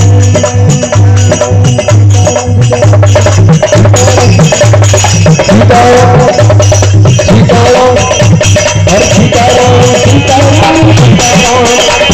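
Kirtan music led by a dholak, played in a fast, steady rhythm of deep bass strokes and sharp slaps, over a sustained melody, with shaken hand percussion.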